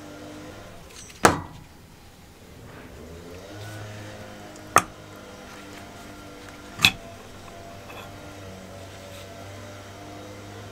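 Background music with steady held tones, broken by three sharp metallic knocks from small engine parts being handled: one about a second in (the loudest, with a brief ring), one near five seconds and one near seven seconds.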